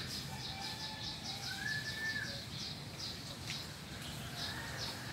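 Birds calling: a rapid series of short, high chirps, about four or five a second, with a drawn-out whistled note that slides up and then holds steady.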